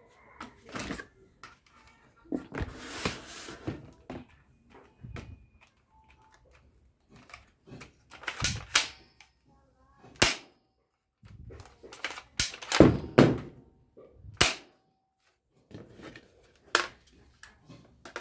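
A toy gun being handled and fired: several sharp cracks at irregular intervals, mostly in the second half, with softer clicks and rattles of handling in between.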